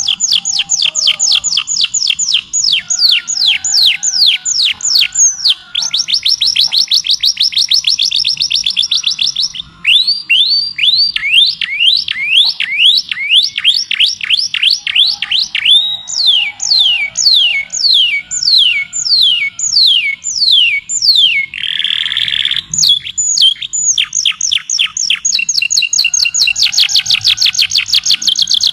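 A songbird singing long trills of rapid whistled notes, each sweeping down in pitch, several notes a second. The pace changes from phrase to phrase, and a brief harsher note comes about three-quarters of the way through.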